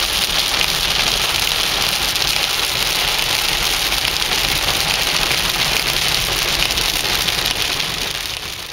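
Heavy rain on a moving car, heard from inside the cabin, over the low rumble of the engine and tyres on the wet road. The sound fades out near the end.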